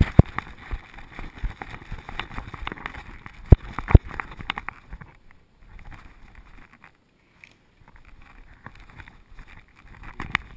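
Handling noise of a camera worn by a dog as she moves about: rubbing and jostling, with several sharp knocks and clicks. The loudest come just after the start and at about three and a half and four seconds in, and it is quieter for a few seconds after the middle.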